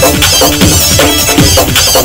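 Electronic dance music with a fast, steady kick drum, about three beats a second.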